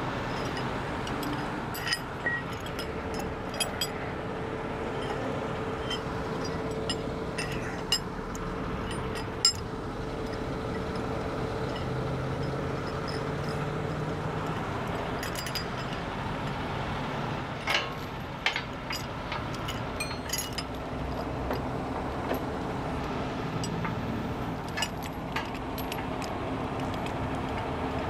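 Scattered sharp metal clinks of recovery chains and hooks being handled and rigged, about a dozen over the stretch, over a steady hum of running vehicles.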